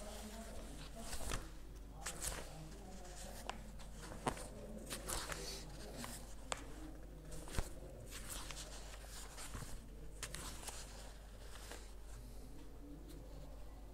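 Quiet room noise with scattered small clicks and knocks and faint shuffling, over a steady low hum.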